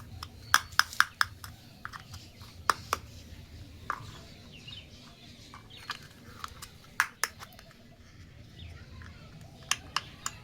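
Small hard plastic toy kitchen pieces being handled, clicking and tapping together in sharp, irregular clicks, with a quick cluster about a second in and another near the end.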